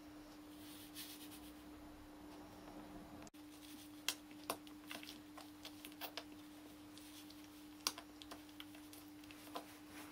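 Faint, irregular wet clicks and smacks of newborn Akita puppies suckling at their mother, heard from about four seconds in over a steady low hum.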